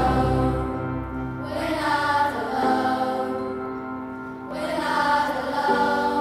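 Background music of slow, held chords that swell twice.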